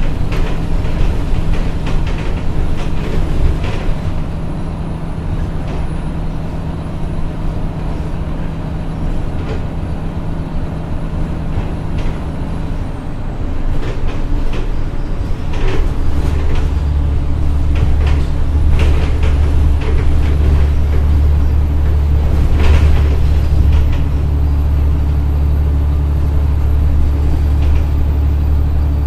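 Articulated city bus's engine running as the bus moves slowly. About 16 s in, the engine note deepens and gets louder.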